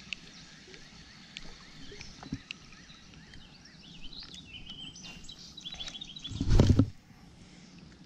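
Quiet outdoor background with faint bird calls chirping about four to six seconds in, and one loud, low thump lasting about half a second about six and a half seconds in.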